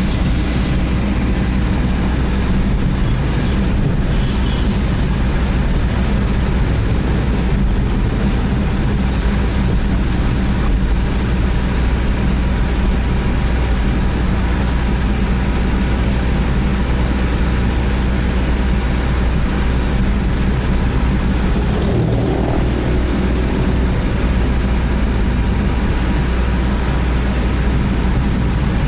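Steady engine and road noise heard from inside a moving car, a strong low hum with uneven bursts of hiss in the first ten seconds or so.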